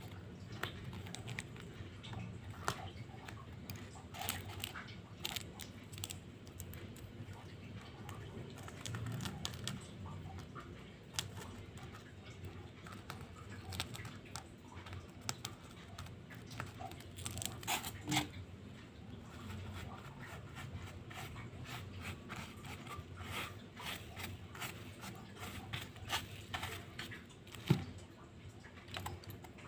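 Fingertips sprinkling and rubbing coloured sand onto a sticky sand-art card: light pattering and rustling with scattered small clicks, and one sharper click near the end.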